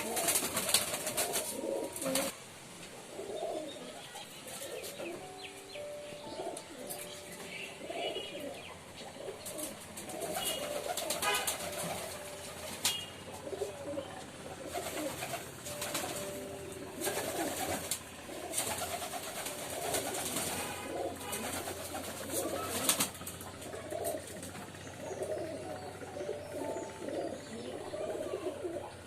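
Several domestic pigeons cooing together in overlapping low, wavering coos, with sharp clatters breaking in now and then.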